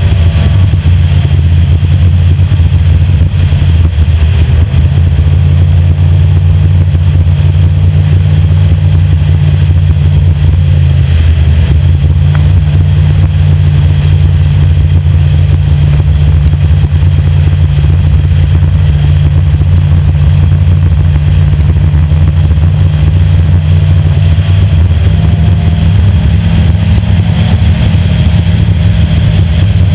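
Race boat's engine running hard at speed, heard very loud and close from on board, holding a steady pitch with small shifts in revs.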